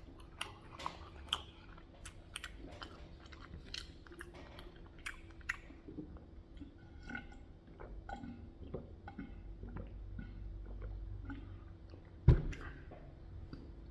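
A person chewing and biting food close to the microphone: wet mouth clicks and smacks, busiest in the first half. There is one sharp thump about twelve seconds in.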